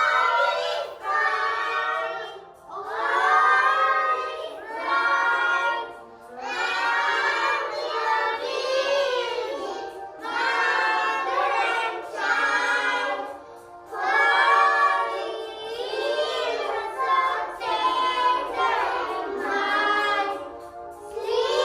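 A group of young children singing together in sung phrases a few seconds long, with short breaks between them.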